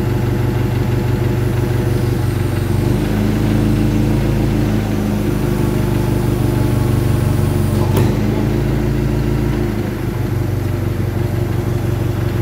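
Forklift truck engine running steadily near idle while the forks lift on a strap, its pitch shifting about three seconds in and again near ten seconds. A single sharp clank about eight seconds in.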